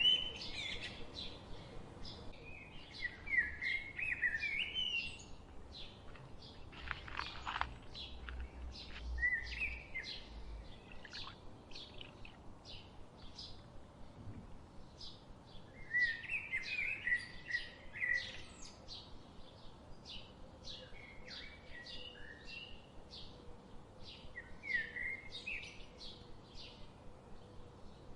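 Small birds chirping and singing: rapid short high chirps throughout, with several warbling song phrases in between.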